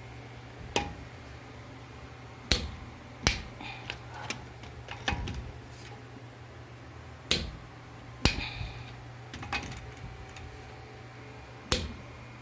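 A click-type torque wrench tightening wheel nuts to 110 Nm. It gives sharp single clicks, about six of them, a second or more apart, with fainter ticks in between.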